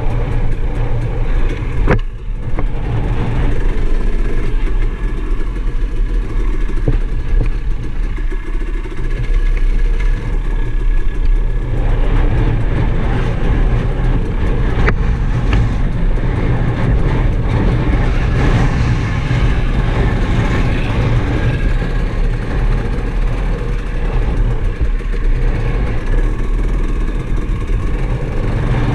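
Off-road vehicle engine running steadily as it rides along a dirt trail, loud, heard from the rider's onboard camera.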